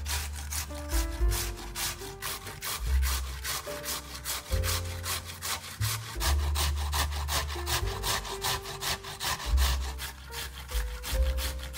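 Raw vegetables being rubbed down a hand grater in quick, even strokes, about four a second, over background music.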